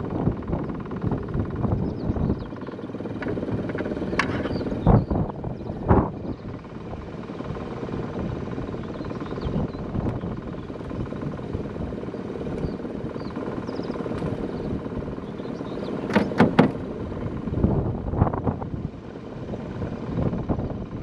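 Steady wind rumble on the microphone, broken by sharp knocks and clatters from handling a caught pike in an aluminium boat: one about five seconds in, another a second later, a quick run of three about sixteen seconds in and one more near eighteen seconds.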